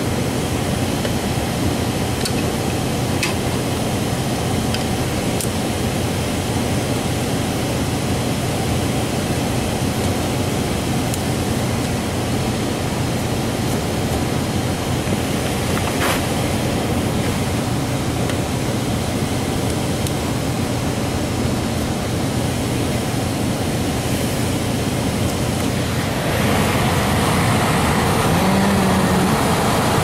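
Air handler's blower running with the access panel off: a steady rush of air over a low hum, with a few faint clicks, getting a little louder near the end.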